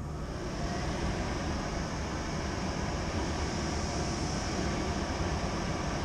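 Blower of a Trane fan-powered terminal box running: a steady rush of moving air over a low hum, swelling in at the start and then holding.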